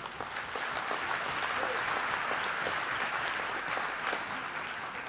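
Large audience applauding, many hands clapping together; the clapping builds over the first second or two and dies down near the end.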